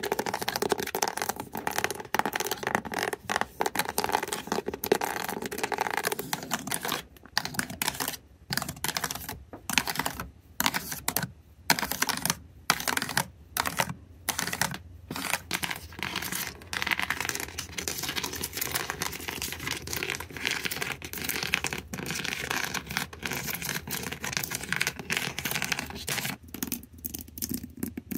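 Backs of fingernails scratching and tapping on a surface: dense, crackly scratching that breaks about a quarter of the way in into separate strokes about one a second, then runs on continuously again and thins out near the end.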